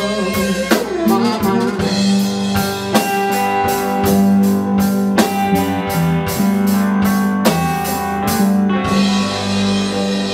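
Live band music with drum kit and guitar. The drums stop about nine seconds in and held chords ring on.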